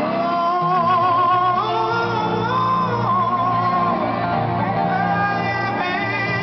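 A male vocalist sings live with a rock band, backed by guitar. He holds long notes with vibrato about a second in and again about three seconds in.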